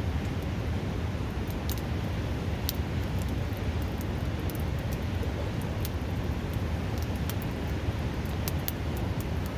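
Wood campfire crackling, with many sharp irregular pops, over the loud steady rush of a river flowing close by.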